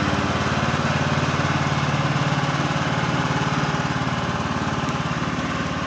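Husqvarna riding lawn mower engine running steadily at an even speed while the mower is driven.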